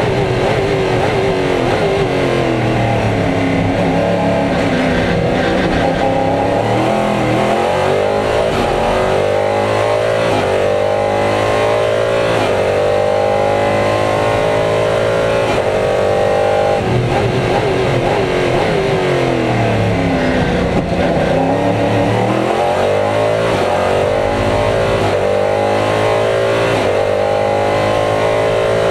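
An LMP3 prototype's Nissan V8 racing engine heard from inside the cockpit at racing speed. It climbs through the gears, its pitch rising and dropping back at each upshift, then falls through several downshifts as the car slows a little past halfway, before pulling hard through the gears again.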